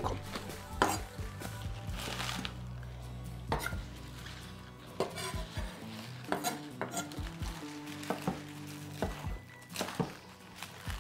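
A chef's knife chopping spring onions on a wooden cutting board: a few scattered cuts at first, then a quicker, more regular run of cuts from about halfway through.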